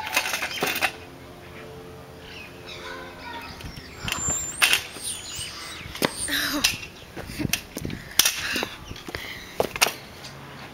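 Metal kick scooter clattering on concrete: a burst of knocks and rattles in the first second, then scattered sharp clicks and knocks as it is picked up and ridden.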